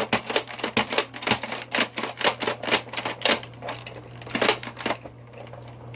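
Plastic pump-action toy missile launcher being worked, its pump and trigger clicking rapidly at about three or four clicks a second. About four and a half seconds in comes a brief puff of air from the launcher.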